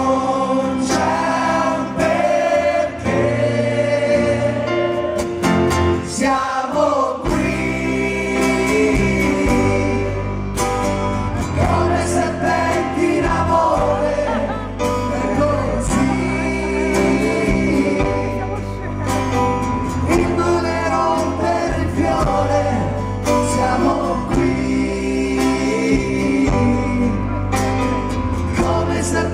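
Live rock band playing a song, led by acoustic guitar. The bass and full band come in about seven seconds in.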